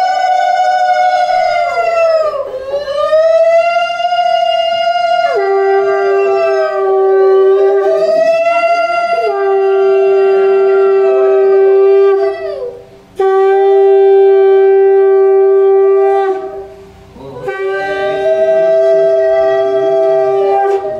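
Conch shells (shankha) blown in a series of long blasts, each held for a few seconds and bending in pitch at its start and end. Often two conches sound together at different pitches. This is the customary auspicious conch-blowing of a Bengali ceremony.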